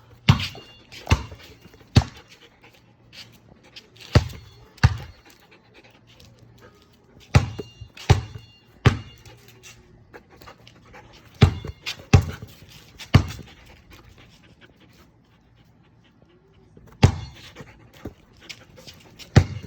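A German Shepherd panting, with sharp knocks in groups of two or three every few seconds.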